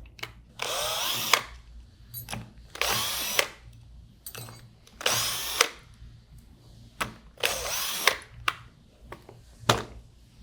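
Cordless power driver spinning out the four bolts of a pump seal retainer: four short runs of about half a second to a second each, each ending in a sharp click, with light metal clicks of the bolts being handled between them.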